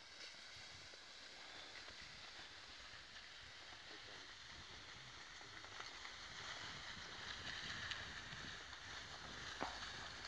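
Faint steady hiss of skis sliding over snow with wind rumbling on the microphone, growing a little louder in the second half, and one sharp click near the end.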